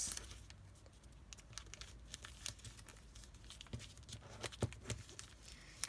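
A sheet of origami paper being folded and creased by hand: faint rustling and crinkling with scattered small clicks.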